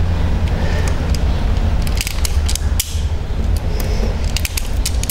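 Hand wire strippers clicking and snipping as insulation is stripped off the ends of wires, a run of sharp clicks starting about two seconds in, over a continuous low rumble.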